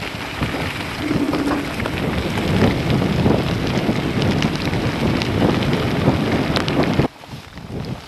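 Wind buffeting the microphone of a mountain bike riding fast downhill, mixed with tyre noise and rattling over a wet track. The rush cuts off suddenly about seven seconds in.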